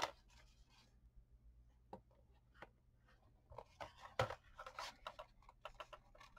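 Quiet handling sounds of a hardcover book and a paper corner cover: scattered light taps and paper rustles, growing busier after about three and a half seconds, with the loudest a single knock about four seconds in.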